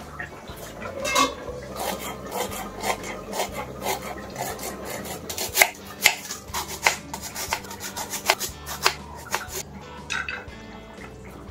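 Knife slicing a red onion on a wooden chopping board: a quick, uneven run of sharp cutting taps that stops about two seconds before the end.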